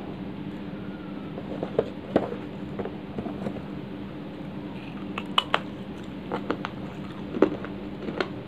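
Chunk of dried clay being broken and crumbled in the fingers, giving scattered sharp cracks and small crumbling ticks, the loudest about five and a half and seven and a half seconds in, over a steady low hum.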